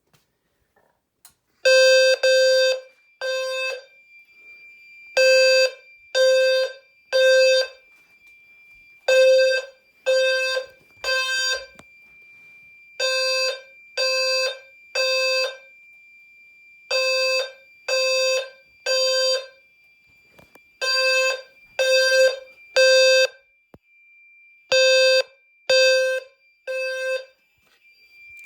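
Low-frequency fire alarm sounder going off in the temporal-three evacuation pattern: three short, low, buzzy beeps, then a pause, repeating seven times, starting about two seconds in. A thin steady high-pitched tone runs underneath the beeps.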